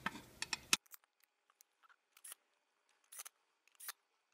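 Light clicks and clacks of the aluminium illuminator housing being closed up and handled: a quick cluster at the start, then a few single clicks spaced about a second apart.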